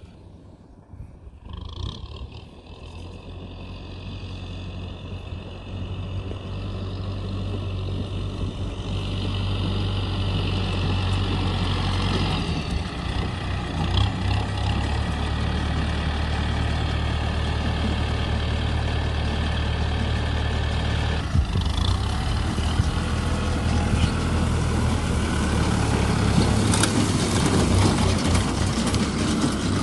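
Kubota tractor's diesel engine running steadily under load while pulling a round baler, growing louder over the first ten seconds as it comes close. Later the clatter of the baler's pickup and chain drive gathering straw mixes in with the engine.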